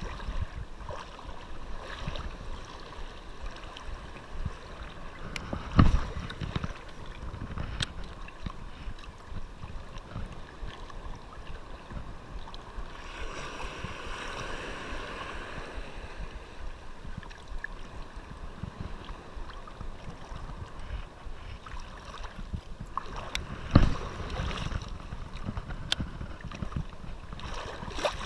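Shallow surf water sloshing and lapping around a wading angler, with small clicks and handling noise. Two sharp thumps stand out, one about six seconds in and one a few seconds before the end.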